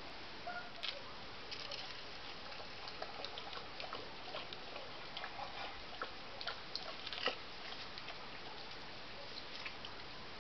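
Small pointing trowel scratching and scraping in wet sand-cement mortar as its edge carves bark grooves: faint, irregular scrapes and clicks over a steady hiss, the sharpest about seven seconds in.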